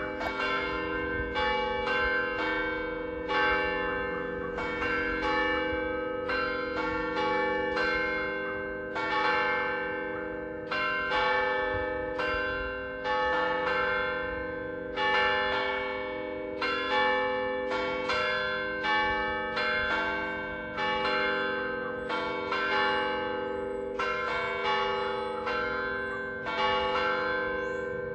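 Church bells cast by the McShane Bell Foundry chiming, several bells of different pitch struck in a steady sequence at roughly one to two strokes a second, each stroke ringing on with a lingering hum beneath the next.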